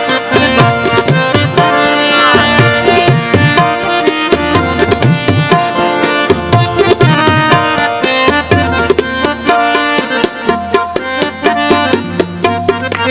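Background music: a melody over a steady, busy drum rhythm.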